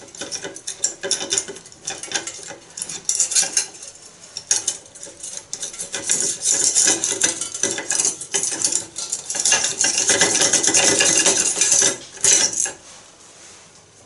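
Thin wire scraping, clicking and rattling against a washbasin's metal pop-up drain as it is worked up and down to clear a clog. The scratching is densest and loudest in the second half and stops shortly before the end.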